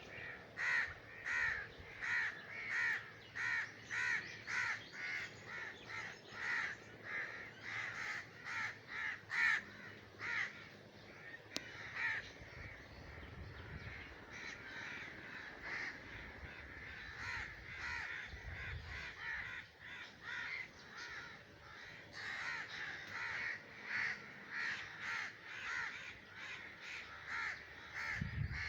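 Crow calling in a long series of short, harsh caws, about two a second, thinning out in the middle and picking up again. These are breeding-season calls.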